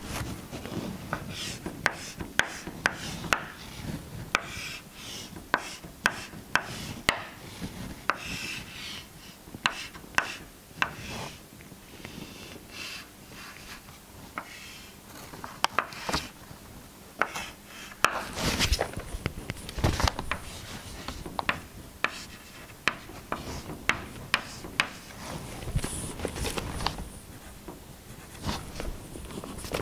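Chalk on a blackboard: sharp taps and short scratchy strokes as lines are drawn, with a cluster of louder knocks about two-thirds of the way through.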